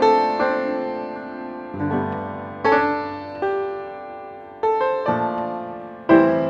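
Background piano music: slow chords struck every second or so, each ringing out and fading.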